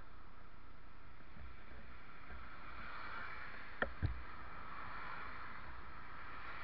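Steady outdoor background noise with a low, unsteady rumble, broken by two sharp knocks close together about four seconds in.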